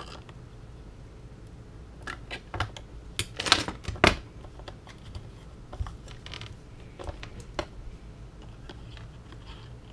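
Scattered light clicks and taps of hard objects being handled, loudest in a quick cluster of clacks about three and a half to four seconds in, over a steady low hum.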